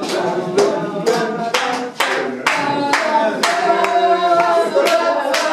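A group of party guests singing together while clapping their hands along, roughly two claps a second.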